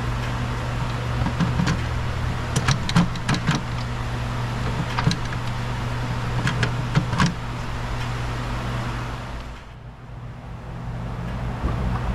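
Scattered light clicks and taps of hand work on an engine's intake manifold while a small bolt is being fitted, over a steady low hum in the background.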